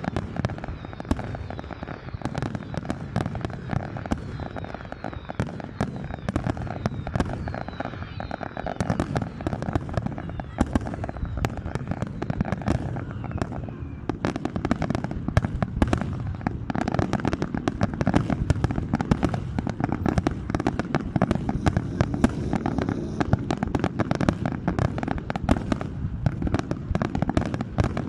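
Fireworks display: a dense, continuous barrage of bangs and crackles, growing thicker about halfway through, with faint whistles in the first half.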